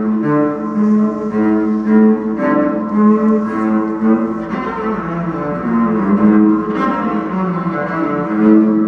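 Solo cello bowed in a slow line of notes about half a second each, moving among a few low pitches.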